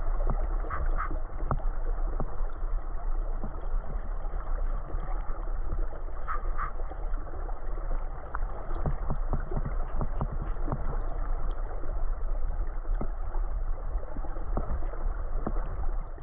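River current rushing and gurgling, heard muffled and low as if through an underwater camera, with scattered small clicks and ticks throughout.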